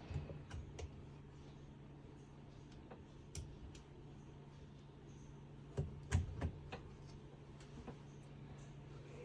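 Scattered small knocks and clicks of a hand tool working a spring-loaded ground wire down into the center of a school bus steering column: three about a second in, a cluster of four about six seconds in, over a steady low hum.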